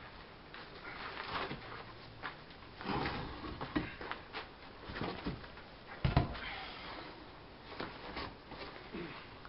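Irregular knocks, scrapes and clunks of firebricks and wooden arch-support pieces being shifted inside a brick kiln chamber, with one louder thump about six seconds in.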